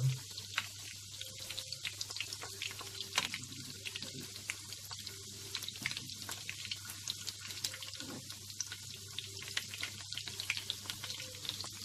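Flour-and-egg-coated chicken chunks shallow-frying in a little oil in a pan: a steady sizzle with many irregular small pops and crackles.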